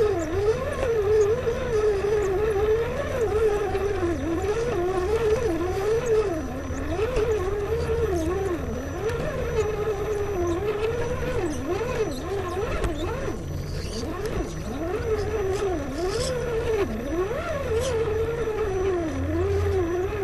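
Electric motor and gear whine of an Axial SCX10 RC rock crawler. It rises and falls in pitch continually as the throttle is worked while it crawls over rocks.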